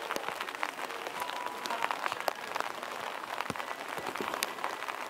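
Steady rain falling, with a dense patter of drops.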